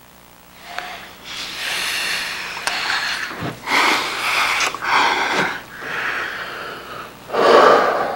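Heavy breathing and gasps of two people kissing passionately, starting about a second in, with a louder gasp near the end as they break apart.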